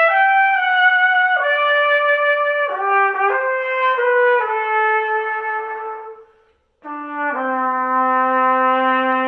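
Solo trumpet playing a slow, lyrical melody of held notes that step from one pitch to the next. A little past halfway it stops briefly for a breath, then comes back on low held notes.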